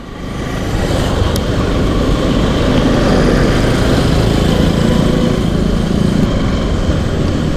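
Motorcycle engine running on the move through traffic, mixed with steady wind rush on a helmet-mounted camera's microphone.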